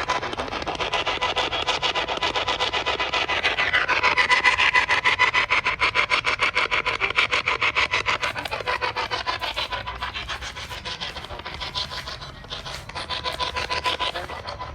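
Fast, even rasping pulses, many a second, whose pitch sweeps down and back up twice, over a steady thin tone.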